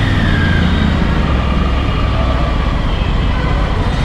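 Triumph Tiger 900 Rally Pro's inline three-cylinder engine running steadily as the bike is ridden slowly through city traffic. A continuous low rumble mixes with the surrounding road and traffic noise.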